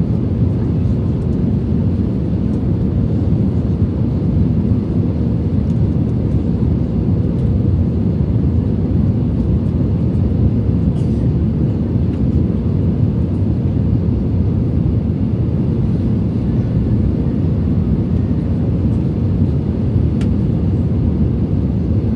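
Airbus A321 cabin noise: a steady, loud, low rumble of engines and airflow heard from inside the cabin, with a faint steady hum above it and no change in level.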